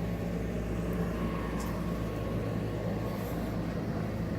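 Steady low machine hum with a faint click about one and a half seconds in.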